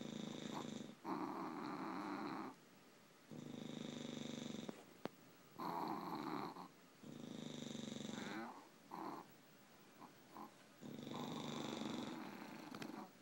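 Sleeping English bulldogs snoring: rattling in- and out-breaths come in a steady rhythm, about four breath cycles, and some breaths carry a thin high whistle.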